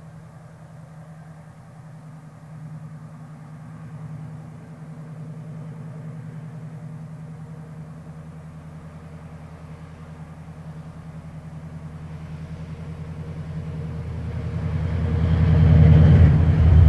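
A pair of Class 68 diesel-electric locomotives running under power as they approach, the engine hum growing steadily louder and peaking as they pass close by about sixteen seconds in.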